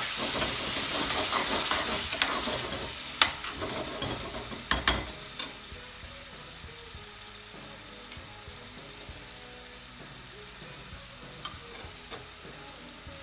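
Chicken and its leftover sauce sizzling loudly as they hit hot oil and spiced gravy in a pan, being stirred. There are a few sharp knocks about three and five seconds in, and the sizzle then settles to a quieter, steady frying.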